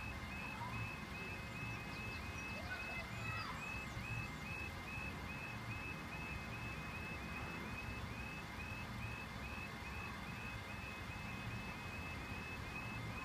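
Level crossing warning alarm sounding: a short high tone repeating steadily about three times a second.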